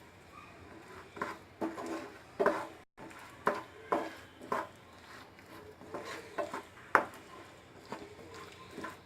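A spoon scraping and knocking against a pan, at an irregular pace, while roasted peanuts are stirred into thick jaggery syrup for peanut chikki; the loudest knock comes about seven seconds in.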